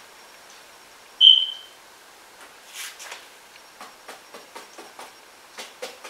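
A single short, high-pitched chirp about a second in, fading over half a second, with faint taps of a paintbrush on canvas around it.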